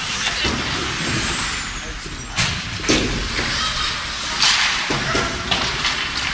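Ice hockey game sounds in a rink: several sharp clacks of sticks and puck, with skates scraping the ice, over spectators' chatter.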